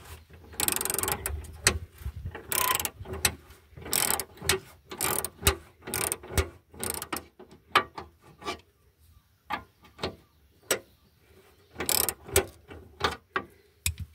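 A wrench turning the nut on a car's subframe mounting pin: a run of irregular metallic clicks and short scrapes, about two a second, with a few longer rasping strokes.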